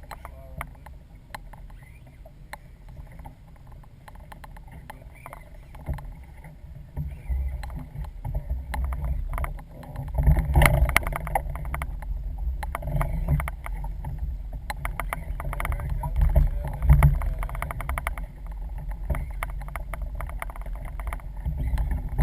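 Small fishing boat at sea: low rumbling water and wind noise that swells partway through, with many irregular knocks and clicks from the hull and gear.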